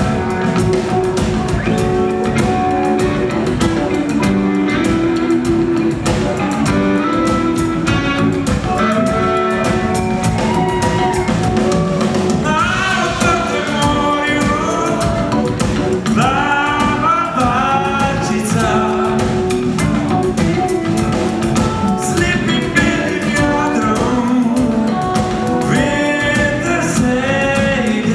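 Live rock band playing: electric guitars, bass guitar and drum kit with a steady beat, and a male singer's voice coming in about halfway through.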